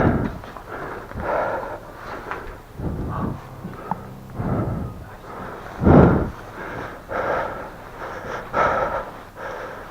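Heavy breathing close to the microphone, a puff about every second or so, mixed with scuffing and rubbing as someone clambers through a tight space. About six seconds in there is one louder, deeper thud.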